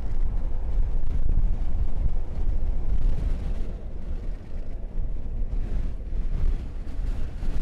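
Loud, uneven low rumble of wind buffeting and road noise from a moving truck.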